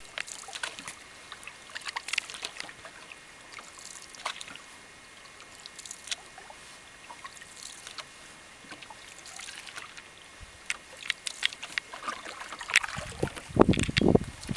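Canoe paddle strokes through calm lake water: light drips, trickles and small splashes as the blade dips and lifts. Near the end a loud low rumble of wind buffeting the microphone builds up.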